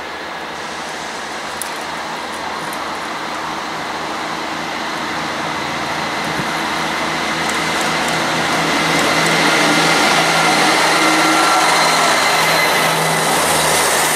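A diesel multiple unit passenger train approaching and running through the station without stopping. Its engine drone and wheel-on-rail noise grow steadily louder and are loudest in the last few seconds as it passes close by.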